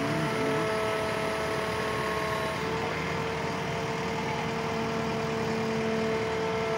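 JCB 3DX backhoe loader's diesel engine running at a steady speed, with a steady whine over it. Part of the whine drops away about two and a half seconds in.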